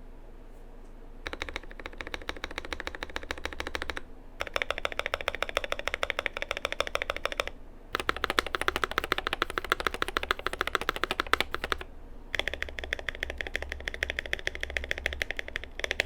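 Keychron Q2 mechanical keyboard's large stabilized keys (lubed, tuned Durock V2 stabilizers, lubed Gazzew Boba U4T switches, XDA keycaps) slapped rapidly over and over in four runs of fast key strikes with short pauses between them: a stabilizer 'stab slap' sound test.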